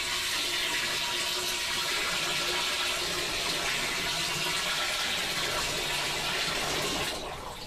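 Tap water poured from a bucket in a steady stream into a large white plastic fermentation tank, splashing into the open neck; the pour stops about seven seconds in.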